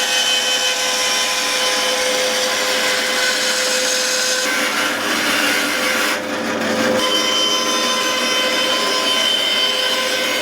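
Power saw running and cutting wood, a steady motor whine over the cutting noise, with a short change in the sound about six seconds in.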